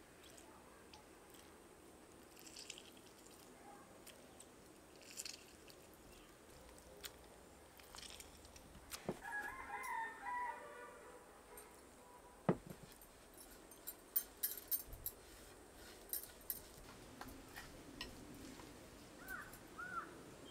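A rooster crowing once, about nine seconds in, a wavering call of a second and a half. Around it are sharp taps and clinks of kitchen vessels being handled, the loudest a little after the crow, with two short bird chirps near the end.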